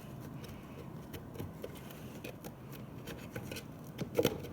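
Faint handling noise from a plastic pop bottle with string tied around its neck: light scattered clicks and rubs, with a louder couple of knocks about four seconds in.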